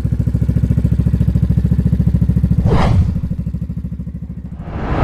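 Motorcycle engine idling with an even pulsing beat, with two short rushing swells of noise about three and five seconds in.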